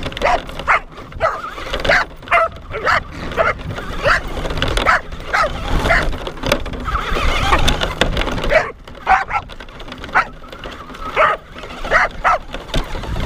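Dogs barking and yipping in a rapid run of short, high calls, two or three a second, with a couple of brief pauses.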